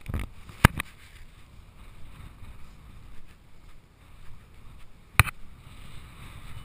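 Wind buffeting the action camera's microphone: a steady low rumble. It is broken by a few sharp knocks, the first as a hand grips the camera housing and another about five seconds in.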